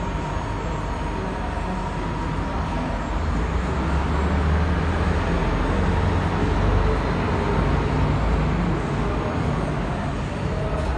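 R179 subway train standing at the platform with its doors open: a steady low hum and rumble from the train, growing somewhat louder in the middle.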